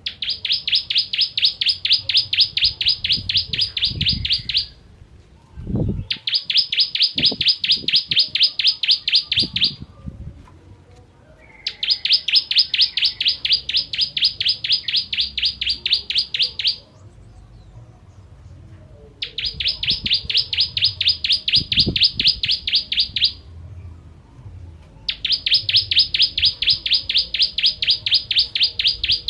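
Bar-winged prinia (ciblek kristal) singing in five long bursts of fast, evenly repeated high notes, each burst lasting about four to five seconds with short pauses between.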